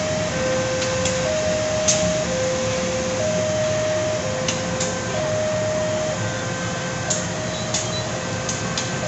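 Railway level-crossing warning signal sounding two alternating tones, a lower and a higher, each about a second long, over the steady low running of a slowly passing diesel locomotive. A few brief sharp clicks come through now and then.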